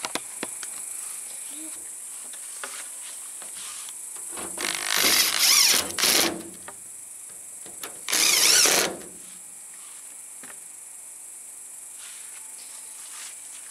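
Cordless drill run in two short bursts, first about a second and a half and then about a second, with a wavering whine, while the door of a refrigerator converted into a smoker is fastened shut. Crickets chirr steadily throughout.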